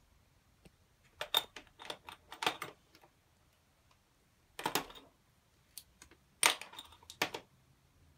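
Quick plastic clicks and clatter of permanent markers and their caps being handled and set down among bottle tops, in three short bunches.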